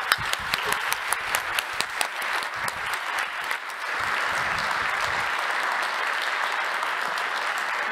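Audience applauding. It starts with sharp, distinct claps close by, then thickens into full, steady applause about four seconds in.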